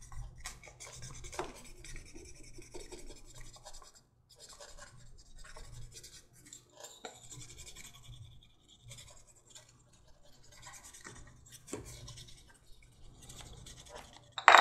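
Wooden burnishing tool rubbed back and forth along the dyed edge of a leather holster piece, burnishing it smooth: scratchy rubbing in short runs with brief pauses. A sharp knock near the end.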